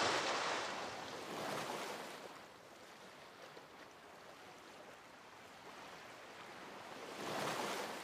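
Ocean surf washing onto a beach, from a film soundtrack. It swells about a second in and again near the end, and is softer in between.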